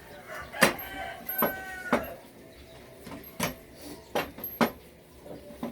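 A series of sharp knocks and clinks, about eight in all and irregularly spaced, some ringing briefly, like tools striking metal motorcycle parts during a repair.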